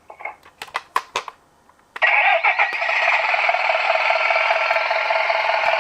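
Toy bus's built-in speaker playing a recorded engine-running sound effect, tinny and steady, starting abruptly about two seconds in after a few sharp plastic clicks.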